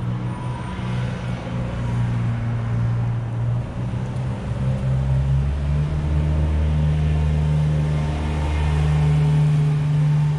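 Motor vehicle engine running close by with a low, steady note that shifts in pitch about four to five seconds in and grows louder near the end.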